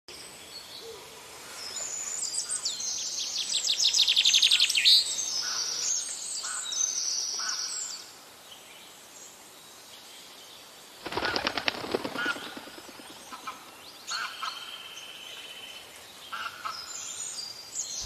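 Wild birds chirping and twittering in a dense chorus of high, quick calls and trills, loudest in the first half. Midway comes a short burst of rapid pulses, and scattered chirps return near the end.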